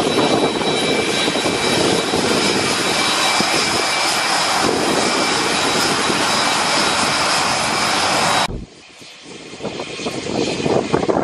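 Lockheed C-130 Hercules's Allison T56 turboprop engines running on the ground: a loud steady noise with a high whine. About eight and a half seconds in the sound cuts off abruptly to a much quieter, uneven background.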